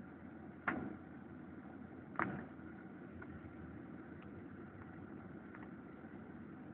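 Steady vehicle engine and road noise, with two sharp knocks about a second and a half apart, the first just under a second in.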